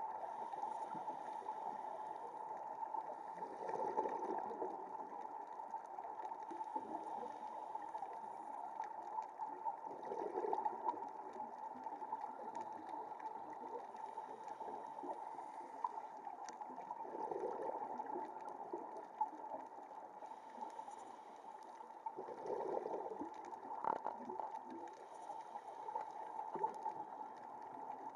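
Muffled underwater ambience picked up through a dive camera's housing: a steady hiss and rumble, with a gurgling swell of scuba exhaust bubbles about every six seconds as the diver breathes out.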